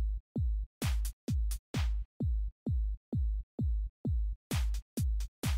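Electronic background music with a steady kick-drum beat, a little over two beats a second, with sharper hi-hat and snare-like hits over it.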